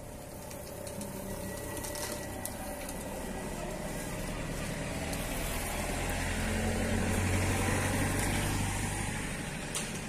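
A motor vehicle passing along the street, its low engine and tyre rumble swelling to a peak about seven seconds in, then fading.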